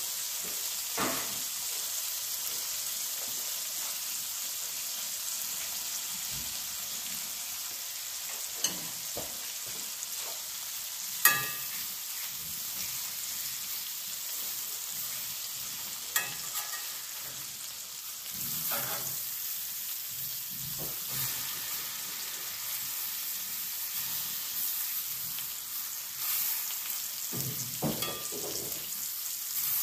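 Steaks frying in melting butter in a cast iron skillet, a steady high sizzle. A few sharp clicks break it, the loudest about a third of the way in, as tongs knock against the skillets.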